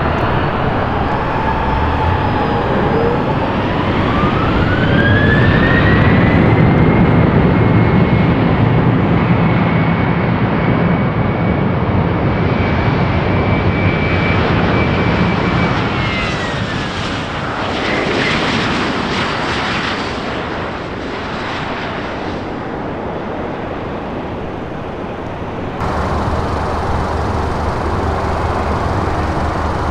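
Boeing 737-900ER's CFM56-7B jet engines running as the airliner taxis, a steady rumble under a whine that rises in pitch a few seconds in, holds, and falls away about halfway through.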